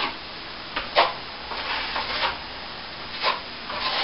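Steel plastering trowel scraping across the setting finish coat of a ceiling patch in several short strokes, polishing the plaster smooth.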